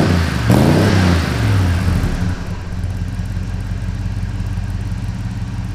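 Small-block Chevy V8 of a 1977 C10 running through new stainless AP Xlerator mufflers with no catalytic converters. It is revved twice in quick succession near the start, then settles by about two seconds in to a steady idle with a slight rumble.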